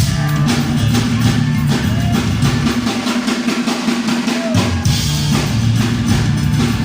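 Live heavy metal band playing a tribal-style instrumental: loud, driving drums and hand percussion pounding over a steady low held bass note and guitar.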